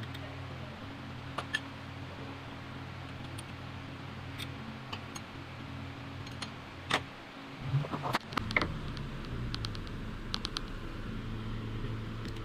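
Metal hand tools and engine parts being handled: scattered light clicks, a cluster of louder knocks and clanks about eight seconds in, then a quick metallic rattle, over a steady low hum.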